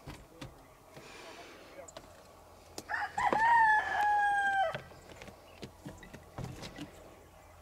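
A rooster crowing once, about three seconds in: a long crow that rises, holds its pitch and drops off at the end.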